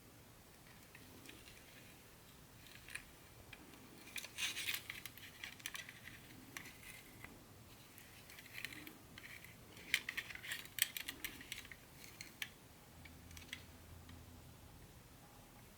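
Small items and packaging being handled during unpacking: scattered light clicks and rustles, busiest about four seconds in and again about ten seconds in.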